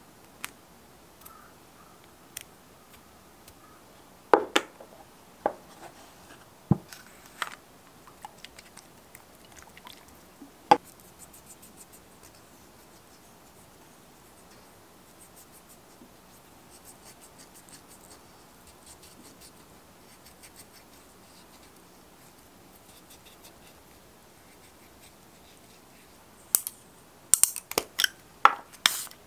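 Close-up handling sounds of nail-care tools: scattered light taps and clicks, and faint rubbing of a cotton pad over the nails. Near the end comes a quick run of sharp spray bursts as ethanol is sprayed onto a metal nail clipper to disinfect it.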